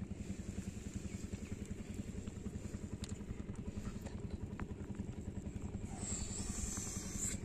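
A small engine running steadily with a rapid, even chug. About six seconds in, a brief hiss of water stirring is added on top.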